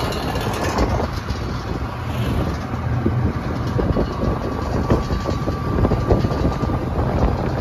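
A vehicle running steadily on the move, its low engine hum overlaid with many irregular rattles and knocks. A faint thin whine sounds for a few seconds in the middle.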